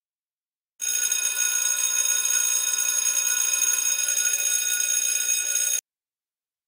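Alarm clock bell ringing in one steady, continuous jangle that starts about a second in and stops suddenly after about five seconds, as the clock is switched off.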